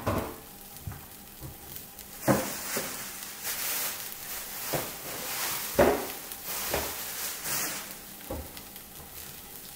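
Chopped scallion, ginger and garlic sizzling faintly in a dry nonstick frying pan with no oil, their moisture cooking off, with a few sharp ticks and pops scattered through.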